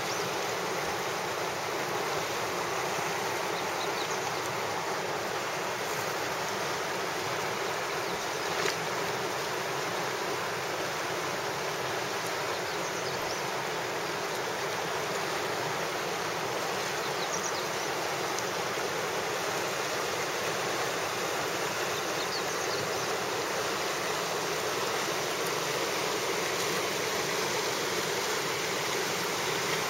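Steady rush of churning river rapids, an even hiss of fast whitewater around a kayak.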